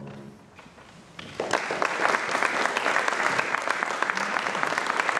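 The last chord on a Steinway grand piano fades away, and about a second later an audience breaks into steady applause.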